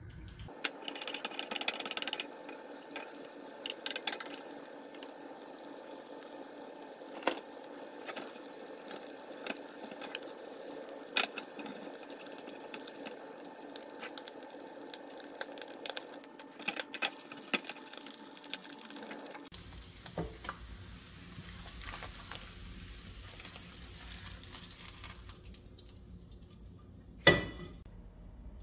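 Eggs frying in oil in a nonstick pan: a steady sizzle scattered with small clicks and pops. The sizzle drops away about two-thirds of the way through, and a single sharp knock comes near the end.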